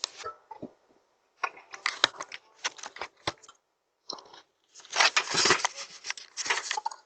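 Irregular bursts of rustling, crunching noise close to the microphone, the densest and loudest running from about five seconds in to the end.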